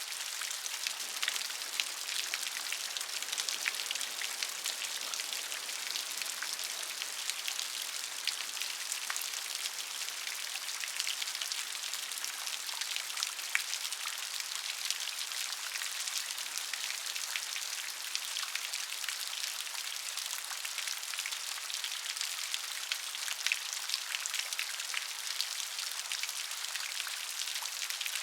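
Steady rain falling on a surface, a dense hiss made of many small drop impacts.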